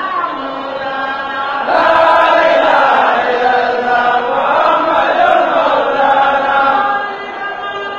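A huge crowd chanting together, with many voices holding long, steady notes. The chant swells louder a couple of seconds in and eases back near the end.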